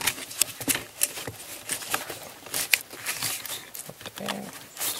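Irregular clicks, scrapes and rubbing of hard plastic and rubber as a hand works a mass airflow sensor back into its rubber-sealed air intake duct, a tight fit.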